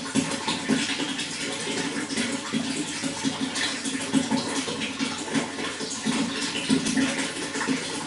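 Running water splashing steadily, a dense continuous rush of small splashes.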